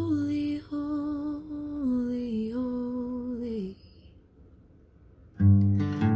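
A woman singing slow, long-held notes that step downward in pitch over a fading acoustic guitar chord; the voice stops a little past halfway. After a short pause, a new guitar strum and singing come in near the end.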